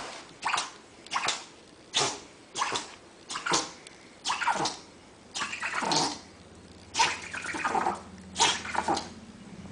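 An animal making a rapid series of short, breathy, rasping calls, about a dozen of them, each sliding down in pitch.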